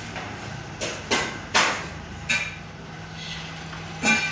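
About five sharp knocks of metal being struck at irregular intervals, a couple of them ringing briefly, over a steady low hum.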